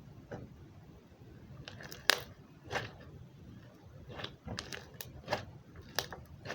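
Elmer's glue slime being squished and stretched by hand, giving off a string of irregular sharp pops and clicks, the loudest about two seconds in.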